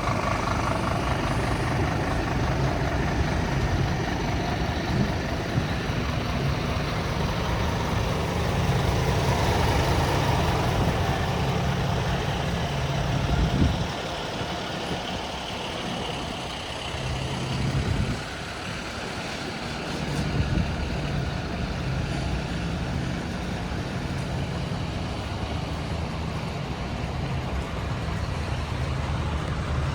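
Scania P250 truck's five-cylinder diesel engine idling steadily. It drops away for several seconds about halfway through, then resumes.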